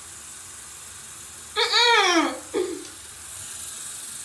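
A woman's high-pitched wordless squeal, rising then falling in pitch and lasting under a second, about halfway through, followed by a short vocal sound.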